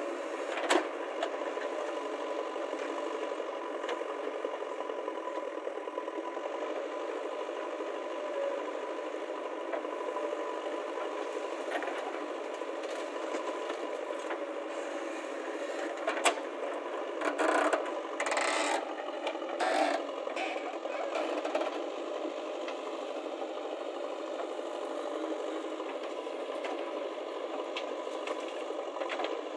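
Diesel engines of a JCB backhoe loader and a Massey Ferguson tractor running steadily while the backhoe digs soil and tips it into the tractor trolley. A sharp knock comes about a second in, and a spell of rattling and clattering comes just past the middle.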